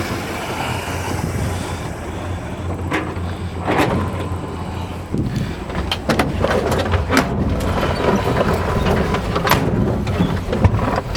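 350 V8 of a 1952 Ford F1 pickup running through its dual exhaust, the low rumble growing stronger about halfway through as the truck drives off. A few sharp clicks and knocks sound over it.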